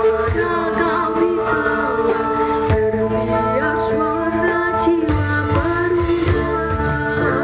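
Music with a singing voice gliding over held instrumental tones and a steady low bass.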